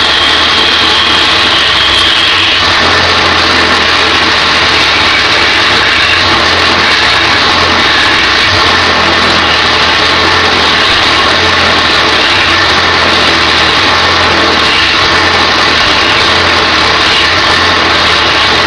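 Wood lathe running while a turning tool cuts a cherry bowl blank: a steady motor hum under a continuous loud scraping hiss of the cut.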